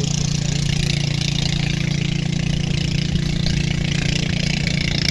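Engine idling steadily with a constant low hum.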